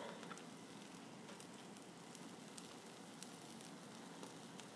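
Faint, even sizzle of an omelet frying in a nonstick pan over low heat, with scattered small crackles.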